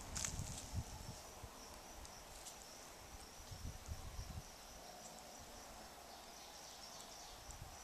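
Outdoor ambience of insects trilling steadily at a high pitch. Low, irregular rumbling buffets the microphone during the first half, then dies away.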